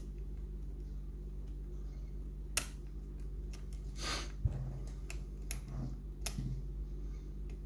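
A handful of separate sharp metallic clicks and one short scrape about four seconds in, from a pick working the pins inside an EVVA lock's keyway, over a steady low hum.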